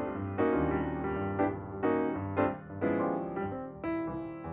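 Background music on piano, a melody with chords struck every half second or so and left to ring.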